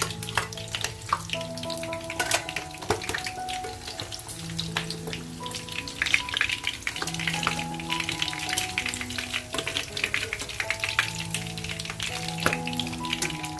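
Pork cartilage sausages (dồi sụn) frying in hot pork lard in a pan, a steady sizzle full of sharp pops and crackles. Background music with held notes plays underneath.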